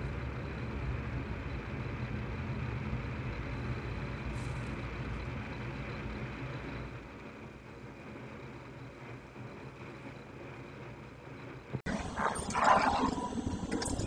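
A pickup truck's engine idling with a steady low hum. About twelve seconds in the sound changes abruptly to a short, louder burst of sharp, pitched sounds.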